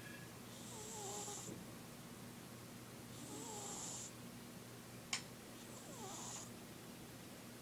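A sleeping pet snoring: three slow snores about two and a half seconds apart, each a hissing breath with a wavering squeaky tone in it. A single sharp click about five seconds in is the loudest sound.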